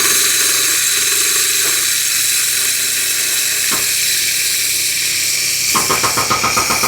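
Core drill boring a hole into concrete: a steady, loud hissing grind over a low motor hum, with a rhythmic chattering grind coming in near the end.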